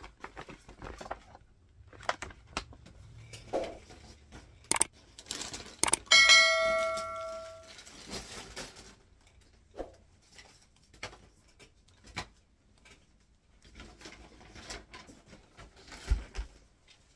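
A bell-like ding sound effect from a YouTube subscribe-button animation, ringing for about a second and a half and fading, with a couple of sharp clicks just before it. Otherwise scattered light taps and rustles.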